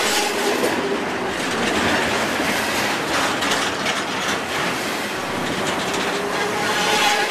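Double-stack container train rolling past at close range: steel wheels running on the rail with a steady dense noise, clacks as wheel trucks pass, and a faint wheel squeal near the start and again near the end.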